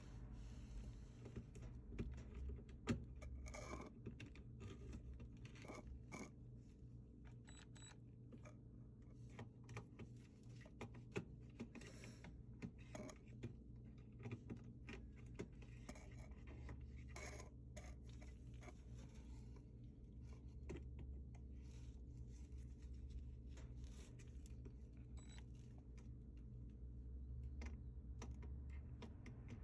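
Faint scattered clicks, taps and short scrapes of hand tools and plastic and metal parts being handled while a washer's shift actuator is fitted and bolted back on, over a steady low hum.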